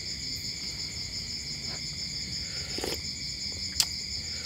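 Steady chorus of night insects such as crickets, a continuous high chirring at several pitches. A single sharp click sounds near the end.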